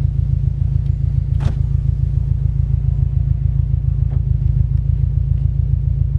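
2017 Subaru STI's turbocharged 2.5-litre flat-four idling steadily through an Invidia R400 cat-back exhaust, heard from inside the cabin as an even, pulsing low rumble.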